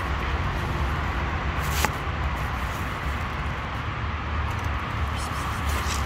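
Steady outdoor background rumble and hiss, with one sharp click about two seconds in.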